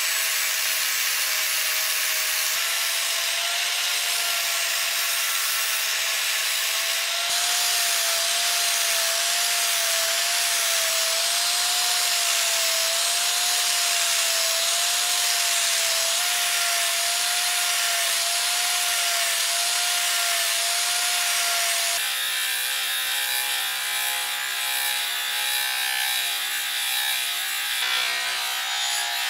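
Angle grinder grinding a steel knife blank: a steady motor whine that wavers slightly under a loud hiss of abrasive on steel. About 22 seconds in, the sound changes to a bench grinder wheel working the blade, a lower hum with less hiss.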